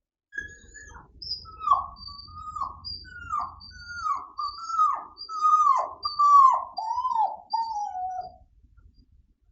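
Dog whining in a run of about eight falling cries that come closer together toward the end, with a bird chirping faintly higher up.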